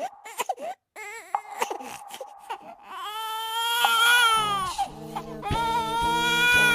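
Horror sound effect of a ghostly crying wail, like a baby or small child sobbing. It starts as short, quavering cries broken by clicks, then rises into two long drawn-out wails, with a low droning tone entering about halfway through.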